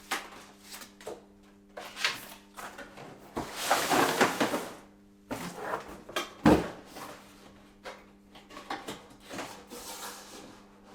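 Cardboard packaging of a soda maker being opened and handled: scattered scrapes, rustles and knocks, with a longer sliding rustle about four seconds in and a sharp knock about six and a half seconds in.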